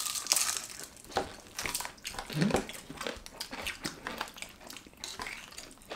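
Close-up eating of crispy Korean fried chicken: repeated crunching bites and chewing, with small clicks and smacks, and a brief hum about two and a half seconds in.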